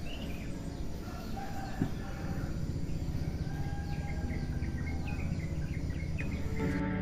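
Outdoor ambience with birds calling in many short chirps over a steady background hiss and low rumble.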